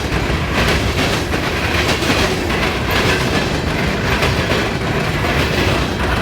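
Coal train's freight cars passing fast over railroad diamond crossings. Their wheels hammer the crossing frogs in a rapid, uneven clatter of bangs over a continuous heavy rail rumble.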